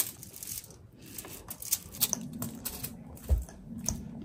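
Hands pressing and patting a mound of chopped chicken and egg salad into shape on a foil-covered tray: scattered small crackles and clicks from the foil and the moist salad, with a few soft thumps in the second half.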